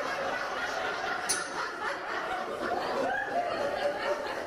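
Theatre audience laughing, many voices chuckling at once, with a single sharp click about a second in.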